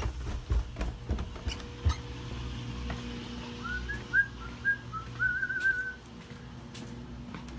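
Footsteps going down stairs and across a floor, with knocks and a low rumble. About halfway through comes a string of short rising whistled notes, ending in a warbling trill.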